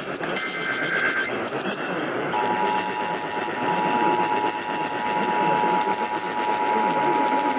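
Emergency Alert System broadcast: the last one-second burst of the SAME header's warbling data tones, then, about two seconds in, the steady two-tone EAS attention signal (853 and 960 Hz sounded together) starts and holds, over steady background noise.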